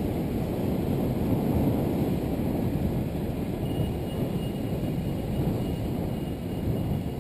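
Wind buffeting a GoPro's microphone on a moving bicycle: a steady, rough low rumble with road noise.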